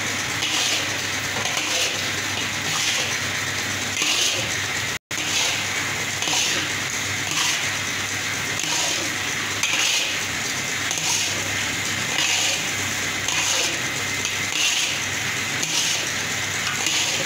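Flat metal spatula scraping and stirring thick semolina halwa round a steel karahi, one scrape about every second in a steady rhythm, over a low steady hum. The halwa is nearly done and is being worked on a low flame. The sound cuts out for an instant about five seconds in.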